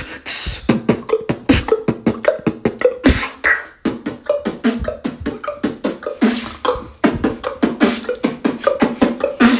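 Vocal beatboxing: a fast, even run of mouth clicks and short pitched pops, several a second, broken by a few longer hissy strokes, in water-style sound effects.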